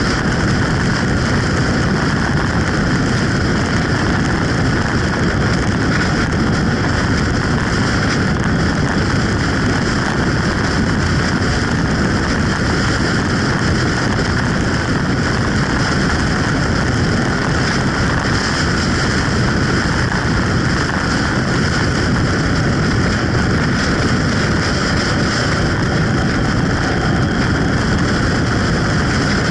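Steady wind rush buffeting the microphone of a camera on a motorcycle at road speed, with engine and tyre noise mixed in underneath.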